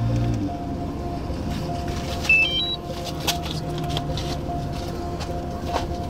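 A road vehicle passes close by, its engine note dropping in pitch as it goes. A steady low hum and rumble follow, with a brief high stepped chirp a couple of seconds in and a few sharp clicks.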